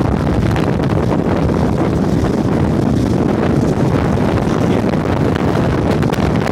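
Tornado-force wind buffeting the microphone: a loud, steady rushing noise, heaviest in the low end, with no letup.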